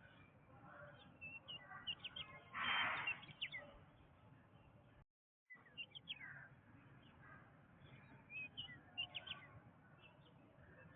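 Jungle ambience of many birds chirping and whistling in short calls. A louder noisy burst comes about three seconds in, and the sound cuts out completely for half a second near the middle.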